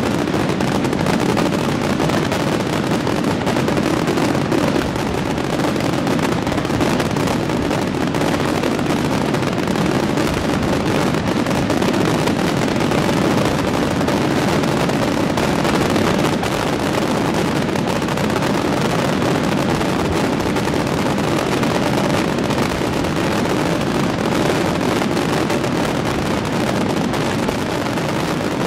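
Aerial firework shells bursting in a rapid, unbroken barrage, the reports running together into a steady, loud rumble with crackle.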